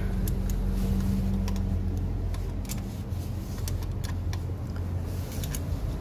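Scattered light metallic clicks and taps of a 10 mm spanner being worked on the nut of an AC high-pressure pipe fitting, over a steady low hum.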